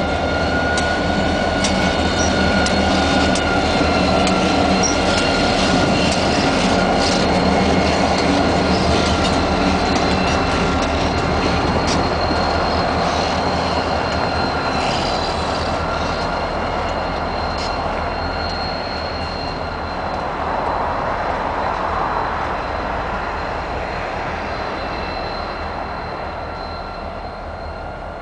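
Canadian Pacific diesel locomotives pulling out, engines rumbling low under a steady high-pitched squeal of wheels on the rails, with a few sharp clicks. The sound is loudest early and slowly fades as the train moves away.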